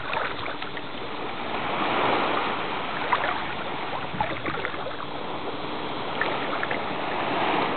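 Seawater sloshing and splashing around a Samoyed paddling alongside a person wading through the water, with a few small sharp splashes standing out now and then.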